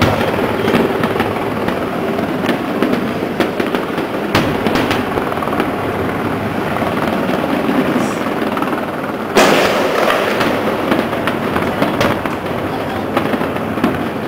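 Aerial fireworks display bursting in rapid succession, a continuous run of bangs and crackles with the loudest bang about nine seconds in.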